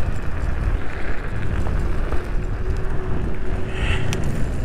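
Riding noise from an electric scooter on a gravel path: a steady low rumble of wind buffeting the microphone and off-road tyres on gravel, with a faint steady hum through the middle and a single short click near the end.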